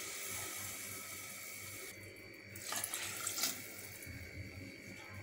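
Water pouring from a jug into a pressure cooker of rice and masala, the flow tailing off, then briefly louder again about three seconds in.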